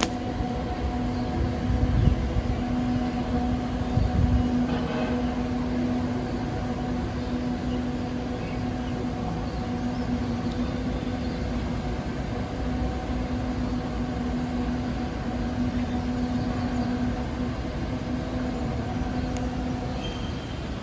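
A steady droning hum at one pitch with overtones, held for about twenty seconds over a low rumble, with two louder low rumbles about two and four seconds in.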